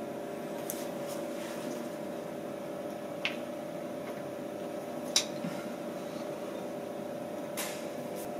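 Steady hum of the idle DATRON M8Cube CNC milling machine, with three sharp clicks about three, five and seven and a half seconds in, the middle one loudest, as the engraved butternut pumpkin is taken off the fourth-axis collet and tailstock by hand.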